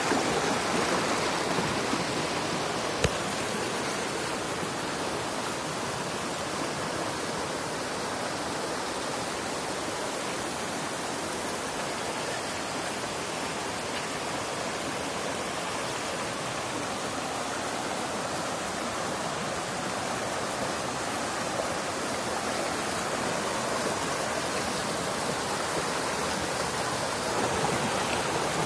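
Shallow rocky stream rushing and splashing over boulders in small cascades: a steady, unbroken rush of water.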